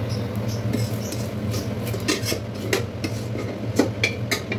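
Steel spatula scraping and clinking against a metal kadai as fried rice is tipped out of it into a pot: an irregular string of short metallic scrapes and knocks, over a steady low hum.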